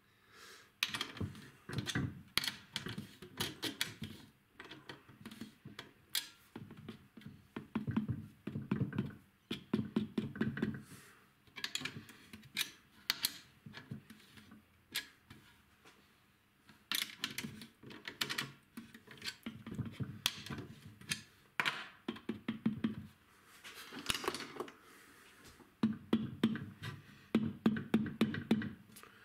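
Screwdriver work and handling on an Alesis electronic kick drum pad: irregular runs of quick clicks, taps and knocks, with a quieter pause about halfway through.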